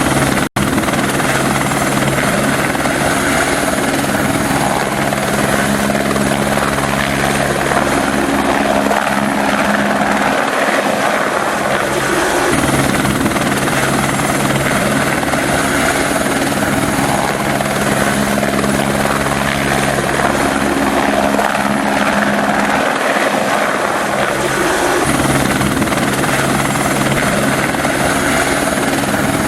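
Helicopter flying, a steady rotor and engine drone with a stack of low tones under a dense hiss. The sound drops out for an instant about half a second in, and the deep low end thins briefly twice, around the middle and again later.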